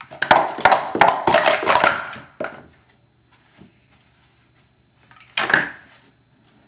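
Speed Stacks plastic sport-stacking cups being rapidly stacked up and down in a 3-3-3 sequence: about two seconds of quick, dense clattering clicks, then a single short knock. A few seconds later comes one brief clatter as a cup is knocked over onto the mat.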